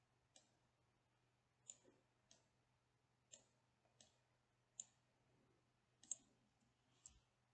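Faint computer mouse clicks, about nine scattered irregularly over several seconds, over a faint low steady hum.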